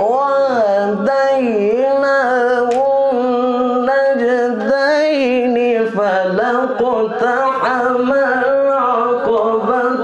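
A solo male voice reciting the Quran in the melodic mujawwad style, drawing out long held notes that glide up and down and waver in quick ornaments.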